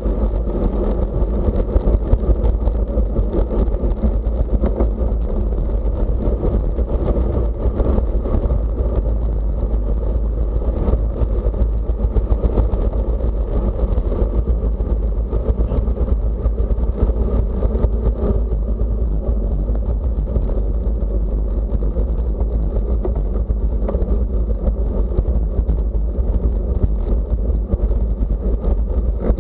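Steady rumble of wind and road noise on a microphone moving with the race, unbroken throughout.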